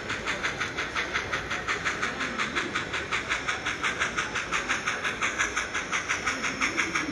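Model steam locomotive sound, steady rhythmic chuffing at about five chuffs a second, played by the sound decoder of an N scale steam locomotive running at an even speed.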